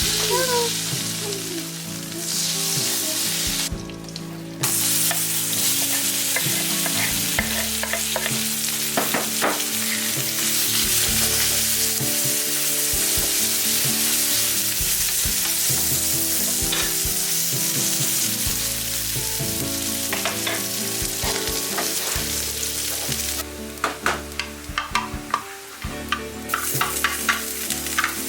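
Food sizzling in a hot pan, with the clicks and scrapes of a utensil stirring it. The sizzle dies down for a couple of seconds near the end, while the stirring clicks go on.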